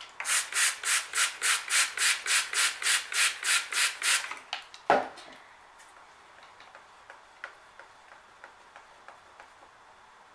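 Plastic trigger spray bottle of water squirted rapidly about fifteen times, near four sprays a second, to thin acrylic paint in a cup. This is followed by a single sharp knock, then faint light taps.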